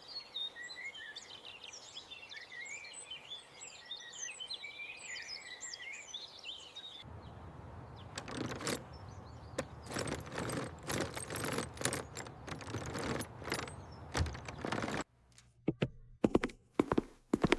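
Birds chirping over a steady outdoor hum for about seven seconds. Then a dense run of quick clicks and knocks lasting several seconds, and a few separate sharp taps near the end.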